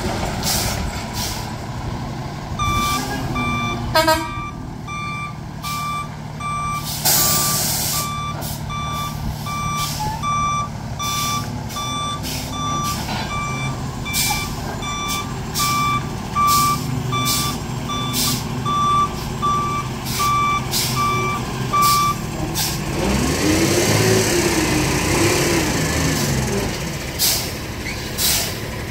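Freightliner roll-off truck's diesel engine running as the truck backs up, its reverse alarm beeping steadily at one pitch for about twenty seconds, with a short air hiss about seven seconds in. After the beeping stops, the engine revs up and back down while the hydraulic hoist tilts the roll-off frame up.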